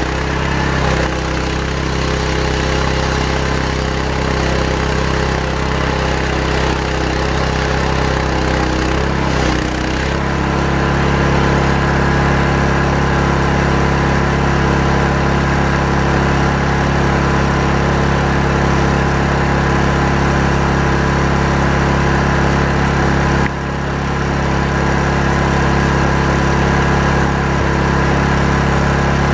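Chainsaw engine running steadily while ripping a hardwood log along its length. The pitch settles slightly about ten seconds in, and the sound dips briefly a little before the end.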